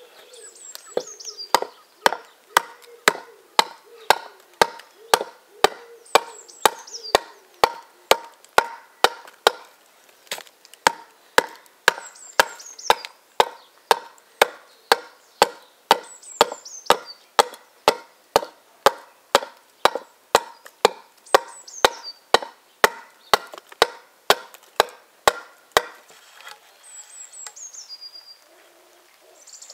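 A hand-forged T-shaped axe with a wrought-iron body and steel bit chopping into the edge of a cleaved ash plank, hewing it to shape. The strokes are short, sharp and even, about two a second, and they stop near the end.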